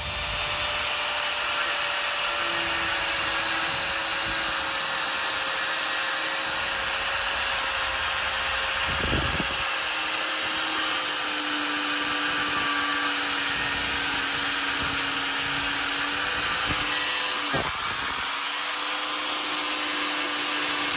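Angle grinder with a thin cut-off wheel running and cutting through a steel rod, a steady motor whine over the harsh noise of the disc on metal.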